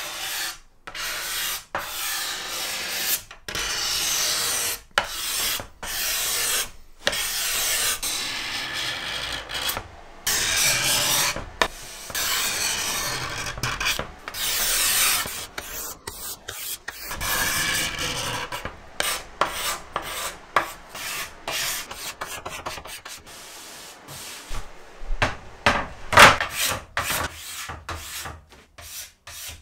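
Steel card scraper drawn by hand across a wooden cabinet panel, scraping off the old finish in a long series of rasping strokes with short gaps between them, the strokes shorter and quicker toward the end.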